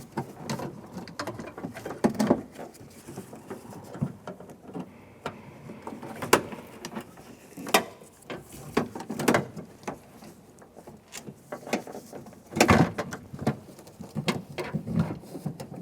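Irregular clicks, taps and light rattles of metal rods and latch parts being handled inside a car door shell while a door lock rod is fitted to the latch, with a louder cluster of knocks late on.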